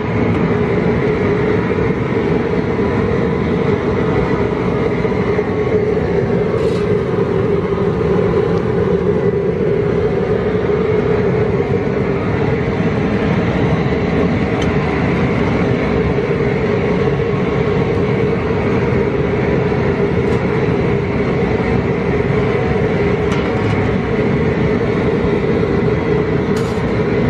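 Propane burner running steadily under the boil pot: a constant rushing noise with a steady hum.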